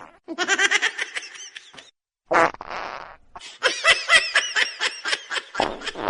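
A person laughing in two runs of rapid, pulsing bursts, broken about two seconds in by a short buzzy noise lasting about a second.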